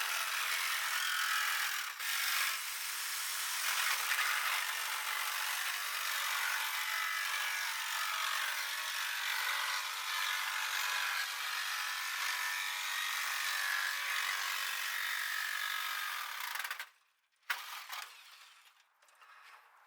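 A power tool cutting steadily through the sheet-steel floor pan of a 1967 VW Beetle chassis. It stops abruptly about three seconds before the end, followed by a few brief, fainter sounds.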